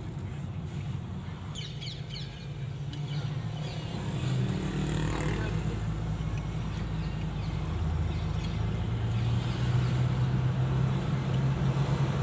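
Car engine and road noise heard from inside the cabin while driving, getting louder about four seconds in, with the engine note rising gently over the second half.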